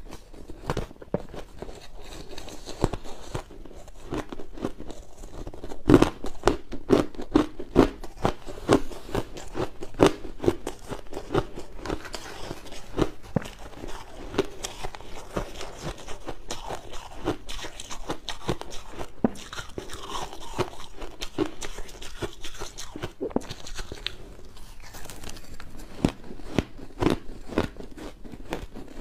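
Close-miked chewing of big mouthfuls of crushed ice: rapid, irregular crunching that runs on throughout, loudest and densest for a few seconds about six seconds in.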